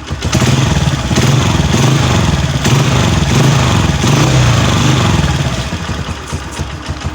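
Honda CG 125's single-cylinder four-stroke engine running and being revved, its speed rising and falling, then easing back in the last couple of seconds. With the cracked Euro pressure pipe replaced, the harsh leak noise that sounded as if it came from inside the head is gone.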